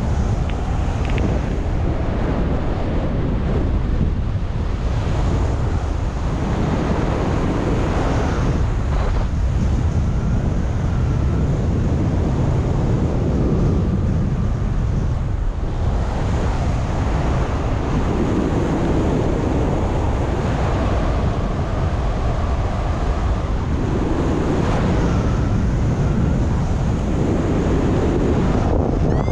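Wind rushing over the microphone of a paraglider pilot in flight: a steady, loud rumble and hiss that swells and eases.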